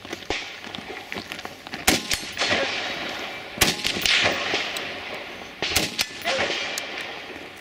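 Rifle shots: a faint crack at the very start, then three loud shots about two seconds apart, each trailing off in a long echo.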